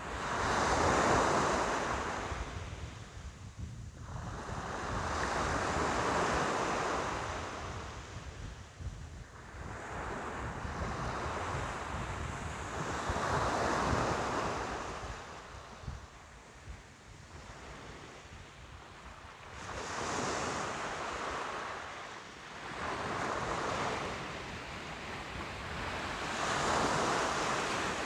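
Ocean surf: waves washing in and drawing back, a swell of rushing water every few seconds, about seven in all, over a steady low rumble.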